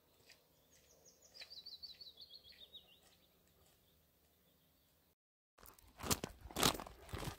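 A small songbird sings one quick run of high notes that falls gradually in pitch, about a second in, over a faint background hush. From about five and a half seconds in, footsteps crunch steadily on a gravel path, louder than the bird.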